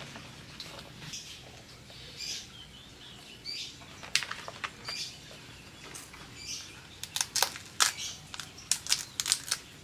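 Short bird chirps repeat about once a second over crisp crackles and clicks of stiff, wet banana leaf being folded and pressed by hand. The crackling is thickest in the last few seconds.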